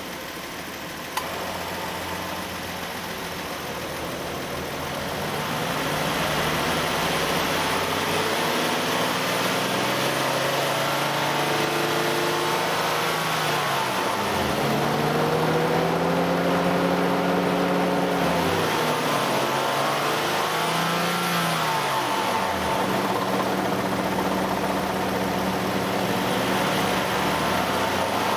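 Nissan Elgrand ME51's 2.5-litre V6 engine, air-conditioning compressor engaged, revved up and down several times from idle, rising in pitch and falling back. This is the test for an abnormal noise that comes in from around 2,000 to 2,500 rpm only when the A/C compressor is working. A single sharp click is heard about a second in.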